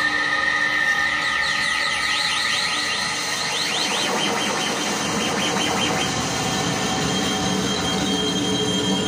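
Harsh noise played live on small handheld electronic noise boxes: screeching electronic noise over steady high tones. From about one to five seconds in it breaks into a rapid run of warbling pitch sweeps, then settles into a single high whine over a low hum.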